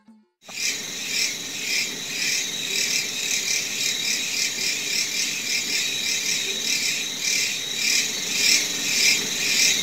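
Chorus of insects making a loud racket: a dense, shrill, pulsing drone with a steady high whine through it, fading in about half a second in.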